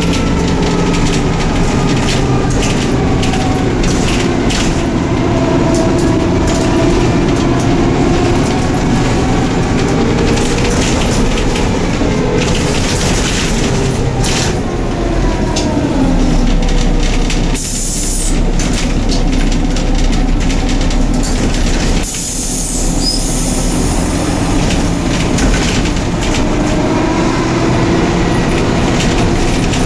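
Cabin noise aboard a moving Neoplan/ELVO N4007 city bus: the engine note rises and falls as the bus speeds up and slows, over many small rattles and knocks from the body and fittings. The noise dips briefly twice in the second half.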